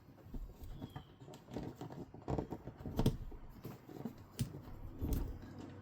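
Irregular small clicks and knocks of hands working a plastic RV toilet water valve loose from its water line fittings, a few louder knocks among them.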